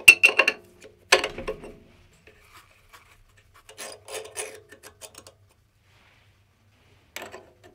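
A stiff brush scraping metal chips off a lathe's collet chuck in two quick rasping strokes. This is followed by further short scrapes and clicks of metal on metal as the threaded steel spindle is pulled out of the collet.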